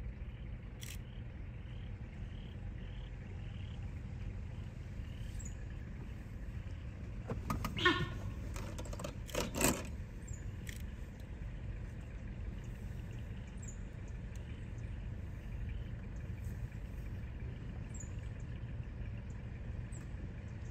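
Low, steady rumble of a vehicle engine idling, with a few sharp clicks and a brief louder rattle about eight and nine and a half seconds in. Faint high chirps come and go over it.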